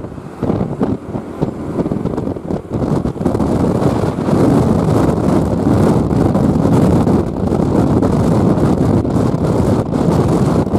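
Intercity bus with a growling 'ngorok' exhaust driving, a steady deep rumble that grows louder about three to four seconds in, with wind buffeting the microphone.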